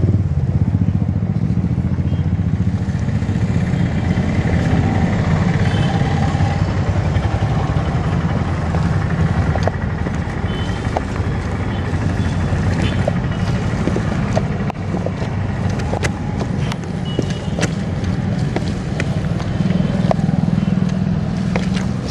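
Steady street traffic noise with motorcycle engines running close by. Scattered small clicks and taps come through in the second half.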